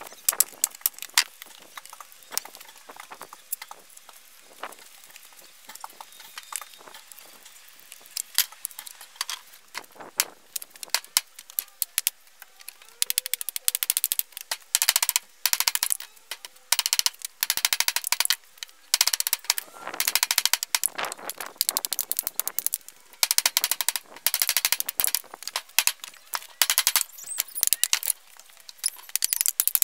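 Hammer driving nails into pallet boards: sharp, bright strikes, scattered and fainter at first, then in quick runs of loud blows from about halfway through.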